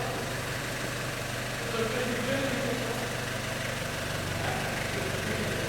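A steady low mechanical hum, like a machine or motor running, with faint voices over it.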